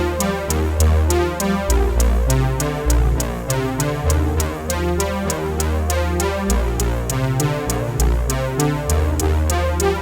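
Background electronic music: synthesizer with a drum-machine beat and a steady bass line.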